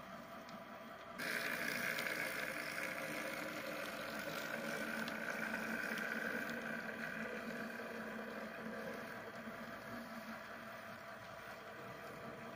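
HO scale model diesel switcher locomotive running along the track, its motor and gears whining steadily. The sound comes in suddenly about a second in and slowly fades toward the end.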